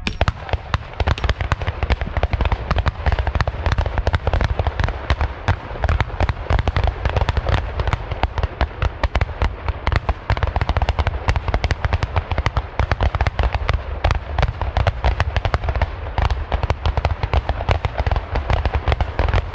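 Rolling fire of black-powder Böller salute guns: a fast, unbroken run of sharp shots, several a second, as a line of shooters fires in turn.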